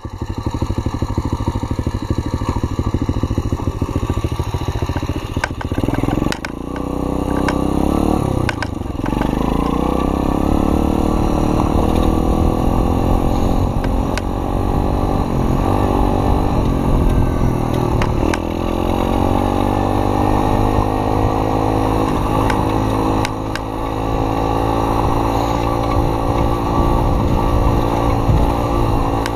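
Dirt bike engine running at low revs, then revving up about six seconds in and running steadily while the bike is ridden along a dirt track, with brief drops in revs around the middle.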